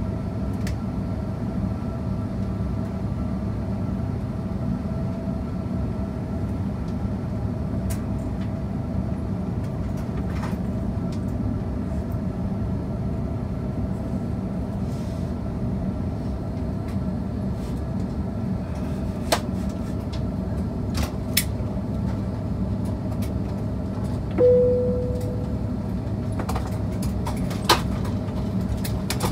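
Airbus A330-200 cabin by the wing: the steady drone of its Pratt & Whitney PW4000 engines at idle as the airliner taxis slowly and comes to a stop. About 24 seconds in, a single cabin chime rings out and fades over about a second, with a few light clicks around it.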